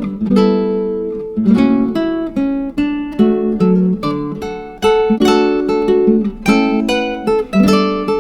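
Background music: acoustic guitar plucking and strumming chords.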